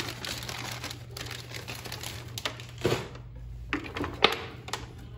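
Scattered clicks, taps and rustling from handling a PC power supply's cables and plastic connectors, over a steady low hum.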